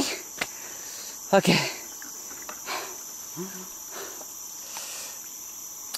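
Chorus of rainforest insects, a steady shrill drone in two high layers. A brief spoken sound comes about a second and a half in.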